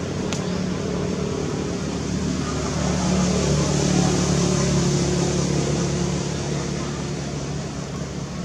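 Steady low motor hum over a hiss, swelling in the middle and easing off near the end.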